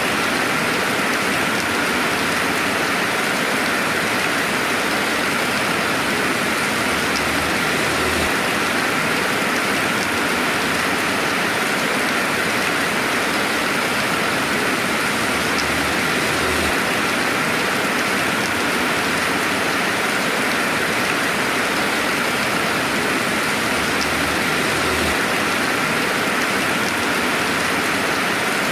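Steady rainfall, a constant even hiss of rain with no thunder, and now and then a faint single drop tick.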